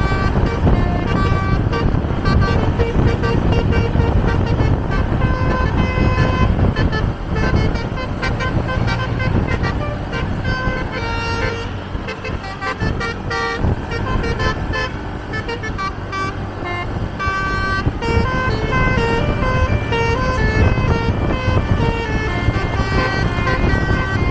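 Tunggal Jaya bus's basuri telolet horn playing quick melodic runs of short stepped notes, over the steady rumble of engines and road noise from moving vehicles.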